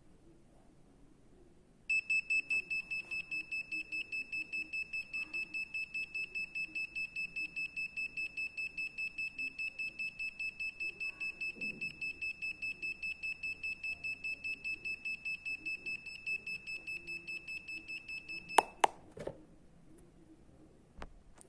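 An Arduino alarm clock's buzzer sounds its alarm: a fast run of high-pitched beeps, about four a second, that stops suddenly with a few sharp clicks near the end.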